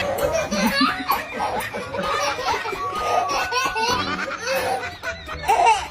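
A person laughing heartily.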